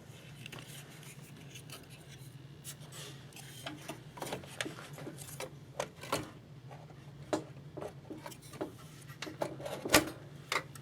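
Scattered clicks, taps and short scrapes of a graphics card being handled and fitted into a computer case's expansion slot, with a sharper click about ten seconds in.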